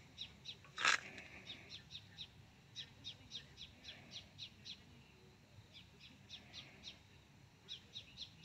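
Small birds chirping: runs of short, high chirps falling in pitch, several a second, with one sharp click about a second in.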